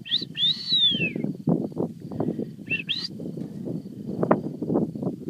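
Two high whistles that glide in pitch: the first a long arc that rises and then falls away, the second, about three seconds in, a quick rising pair. Irregular low thumping and scuffing runs underneath.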